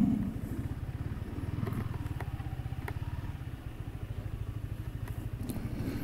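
Motorcycle engine running at low speed: a steady, rapid low pulsing with a few faint clicks.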